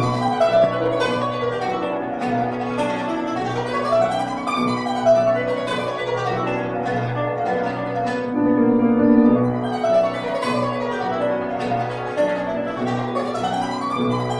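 Armenian kanon (plucked zither) playing quick runs of plucked notes, with piano accompaniment holding low notes beneath.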